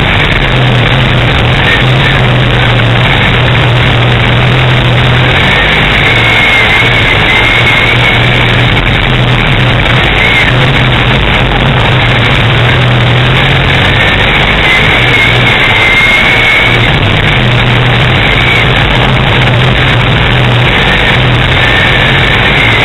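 Race car engine running hard under racing load, heard loud and steady from inside the cockpit.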